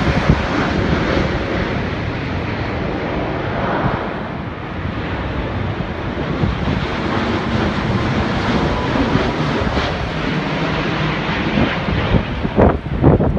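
Jet airliners on landing approach passing low overhead, giving a steady, broad jet roar. Near the end, wind buffets the microphone in loud gusts.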